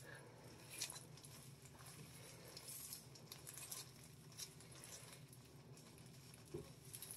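Faint rustling and soft crinkly clicks from rubber-gloved hands and a tint brush working hair dye into a strand of hair, over a low steady hum.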